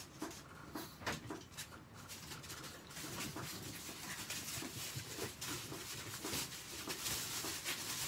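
Chihuahuas moving about excitedly in a wire crate: scattered clicks and scratches of claws, with soft whimpering. The activity gets busier about three seconds in.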